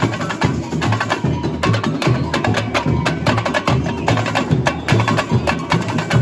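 Samba school bateria playing a samba rhythm: a steady pulse of deep bass drums under dense, sharp, rapid high percussion strokes.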